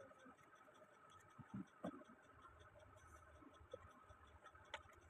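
Near silence: faint room tone with a light, regular ticking and a few soft knocks, like small objects being handled.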